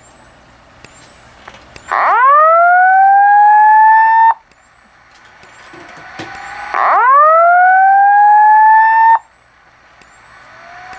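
Fire alarm speaker strobe (a Wheelock) sounding the whoop evacuation tone that introduces the Simplex voice message. There are two loud whoops, each rising in pitch and then holding for about two seconds before cutting off abruptly, about five seconds apart, with a fainter one starting near the end.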